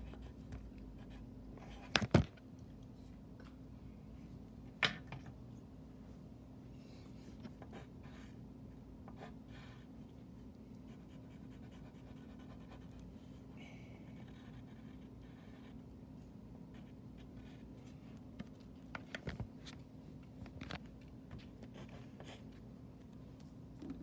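A Sharpie marker and a coloured pencil scratching on paper, with a few sharp clicks, the loudest two about two seconds in and a small cluster near the end. A steady low hum sits underneath.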